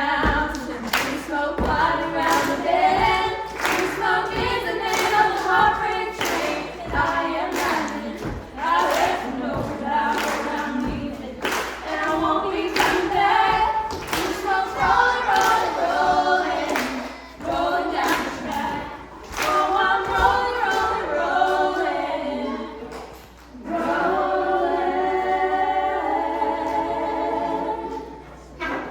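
Several voices singing a song with a steady beat of thumps, with a brief pause about three quarters of the way through before the singing resumes.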